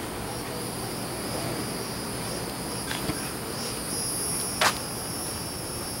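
Steady outdoor background noise with a faint, steady high-pitched whine running through it, and one sharp click about two-thirds of the way in.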